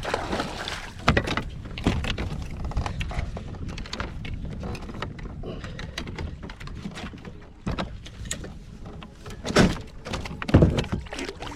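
Irregular knocks and thumps against a plastic kayak hull over a steady low rumble of wind on the microphone, with two heavier thumps near the end.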